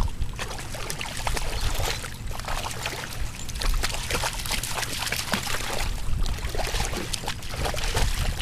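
Water splashing as a dog wades and lunges through shallow water chasing carp: a continuous run of quick, irregular splashes from its legs striking the surface.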